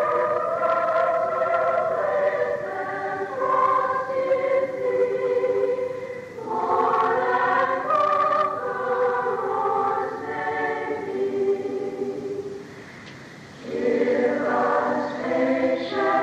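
Women's choir singing a hymn, played back from a tape. The singing pauses for about a second between verses, about three-quarters of the way through, then resumes.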